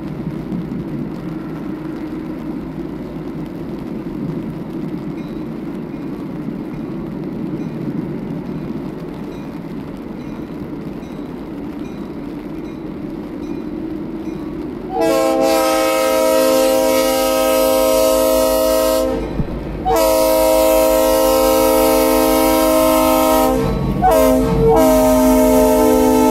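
Low rumble of an approaching diesel freight train, then its locomotive's multi-note air horn sounding loudly about halfway through: two long blasts, a short one, and a long one, the standard warning pattern for a grade crossing.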